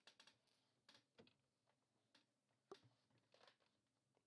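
Near silence: room tone with a few faint scattered clicks.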